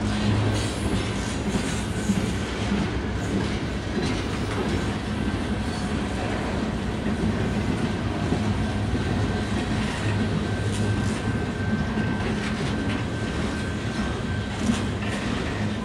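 Freight cars of a passing train rolling on steel rails. A steady rumble of wheels carries occasional clicks over rail joints, and a faint, thin, steady squeal runs through the first half.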